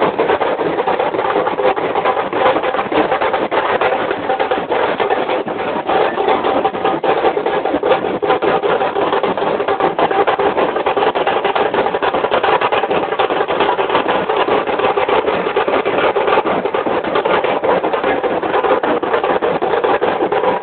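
Procession drums beaten in a dense, rapid, unbroken rhythm, mixed with the noise of a large crowd.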